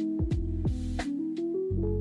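Background music: an instrumental track with a steady bass line and light percussion.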